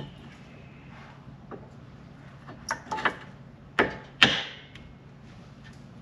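Sharp clacks of hard parts knocking together as a new brake pad is worked into a rear brake caliper. There are two lighter clacks at about three seconds in, then two louder ones close together around four seconds in.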